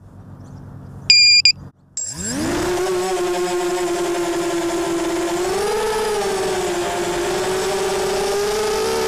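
A short, high electronic beep about a second in, then the ZMR250 quadcopter's brushless motors spin up with a rising whine about two seconds in and settle into a steady propeller whine, the pitch lifting briefly around six seconds in.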